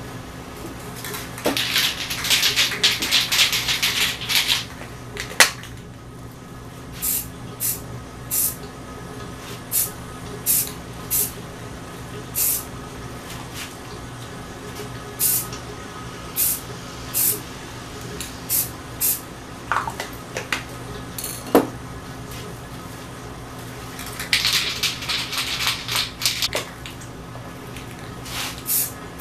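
Aerosol spray paint can spraying: a hiss of about three seconds, then a string of short quick spurts, then another long hiss near the end. Two sharp knocks come in between.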